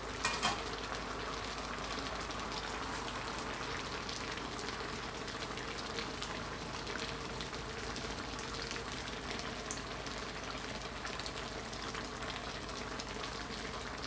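Coconut-milk curry simmering in a wok on the stove: a steady, fine bubbling hiss. Two sharp knocks about half a second in.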